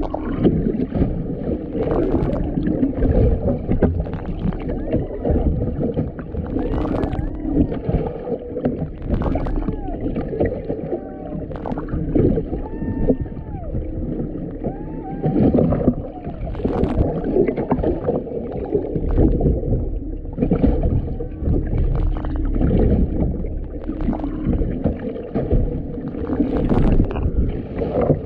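Humpback whale song heard underwater: a string of arching calls that rise and then fall in pitch, over a steady low drone and water noise with scattered crackles.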